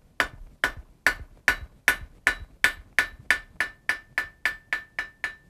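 Blacksmith's hammer striking a hot steel bar on the anvil, drawing down the toe of a scarf for a forge weld: a steady run of about seventeen blows that quickens from about two to about four a second, with a ringing tone hanging between the later blows.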